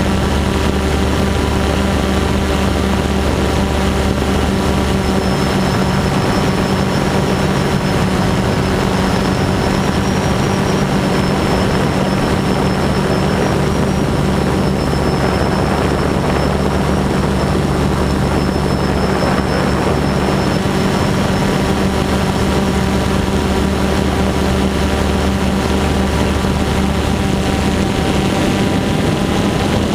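DJI Phantom 2 quadcopter's brushless motors (T-Motor MN2214) and propellers running steadily in flight, heard from the GoPro on board. A steady, loud multi-tone hum and whine over a rushing hiss, its pitch shifting slightly as the motors adjust.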